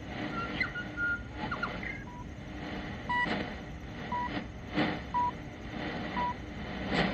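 Radio New Zealand's top-of-the-hour time pips, five short beeps about a second apart, heard over shortwave on a Tecsun S-2200x receiver, with steady hiss and sharp crackles of static.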